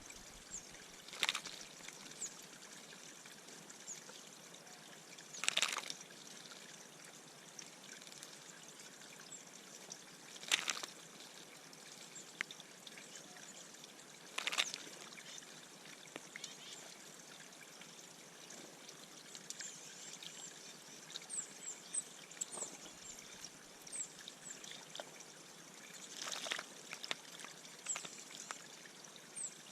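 Birds splashing in a bird bath: a short splash every few seconds over a steady trickle of water. Faint, short, high chirps come in during the second half.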